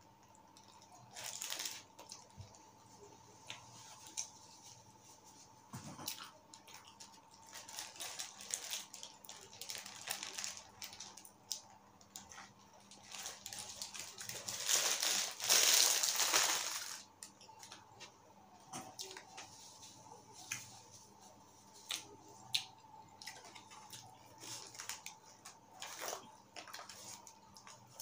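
Chewing and wet mouth sounds of a person eating a chicken burger, with the paper wrapper crinkling; a longer, louder rustle comes around the middle.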